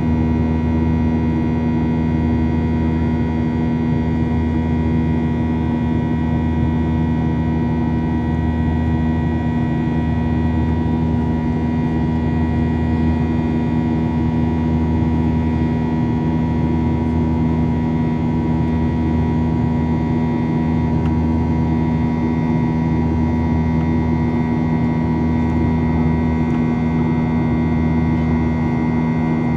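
Boeing 737-800's CFM56-7B jet engines running at a steady setting, heard inside the cabin: a constant engine drone with steady hum tones and no change in pitch.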